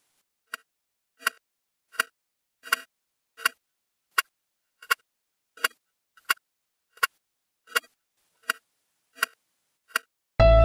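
Steady mechanical ticking, about 1.4 ticks a second, from a waving lucky-cat figurine's swinging arm. Right at the end a loud music hit cuts in.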